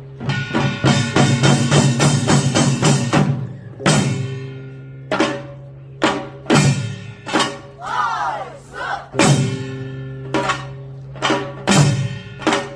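Korean pungmul percussion ensemble playing: a fast run of bright metal and drum strikes for about three seconds, then slower separate strikes, over a steady low ringing tone.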